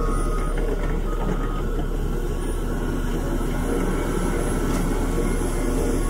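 Heavy diesel earthmoving machinery, a bulldozer or dump truck engine, running steadily under work with an even, unbroken engine note.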